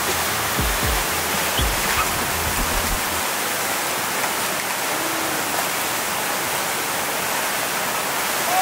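Steady rush of churning water from a citywave artificial standing-wave machine, the wave pouring continuously through the pool.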